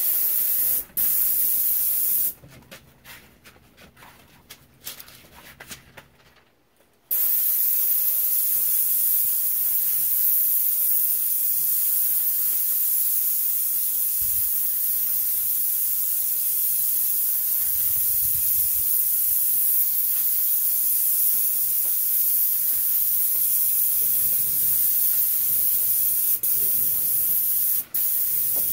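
Airless paint spray gun with a Graco 310 fine-finish tip hissing as it sprays the second coat of paint, the trigger pulled on and off in passes. Two short sprays in the first couple of seconds, a pause of about five seconds, then one long spray of about twenty seconds broken by a couple of quick releases near the end.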